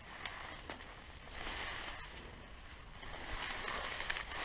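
Dry bankside grass rustling and brushing close to the microphone as a hand reaches down through it, swelling twice, with a few faint clicks.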